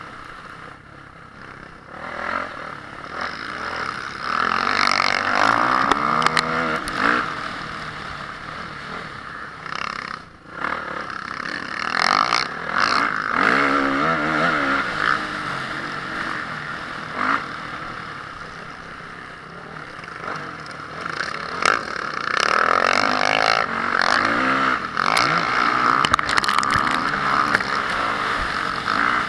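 Honda CRF450R motocross bike's single-cylinder four-stroke engine revving hard and backing off over and over, its pitch rising and falling several times, with rattling and clattering knocks from the bike over the rough track.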